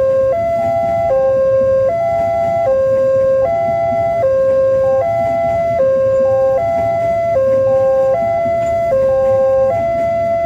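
Level crossing warning alarm sounding a repeating pattern of steady electronic tones that step between three pitches, one cycle about every one and a half seconds, over the low rumble of a passenger train passing over the crossing.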